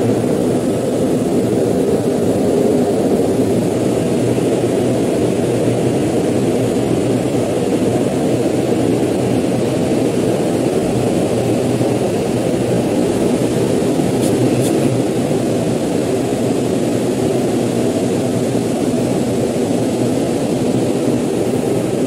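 Heavy industrial plant machinery in a CO2 plant running loud and steady, with a low hum under it.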